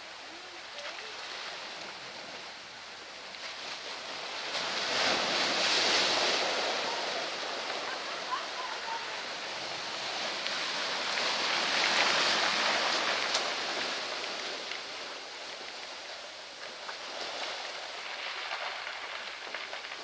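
Ocean surf washing into a rocky cove over a beach of rounded pebbles, the water rolling the stones. The surge builds to two loud swells, about six and twelve seconds in, with a smaller one near the end.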